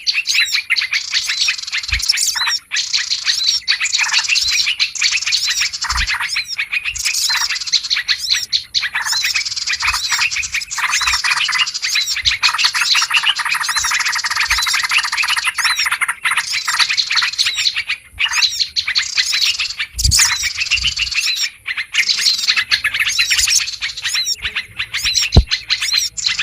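A dense, busy chorus of small birds chirping and chattering without a break, the kind of mixed 'noisy birds' lure recording built around yellow-vented bulbul (trucukan) calls. A few short low knocks sit under the chatter.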